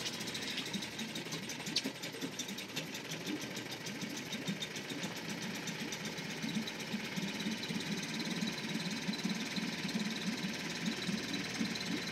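Small Suzuki four-stroke outboard motor running at idle with a steady, fast, even beat.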